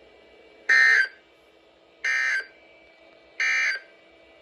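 Three short Emergency Alert System end-of-message data bursts, the warbling two-tone digital code that closes an alert. Each burst lasts about a third of a second, they come a little over a second apart, and the first is the loudest. A faint steady hum runs underneath.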